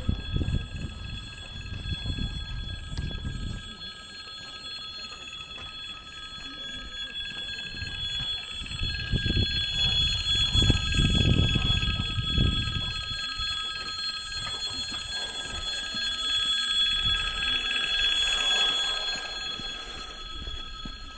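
Railway pedestrian-crossing warning signal sounding continuously, a steady high ringing tone that warns of an approaching train. A low rumbling noise comes and goes beneath it, strongest in the middle.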